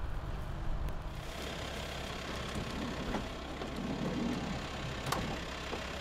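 Minivan engine idling with a steady low hum, and a single sharp click about five seconds in.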